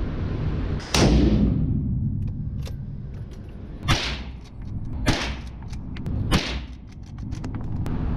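Four pistol shots on an indoor range, each a sharp crack with a reverberant tail, the first about a second in and loudest, then three more about a second apart from about four seconds in.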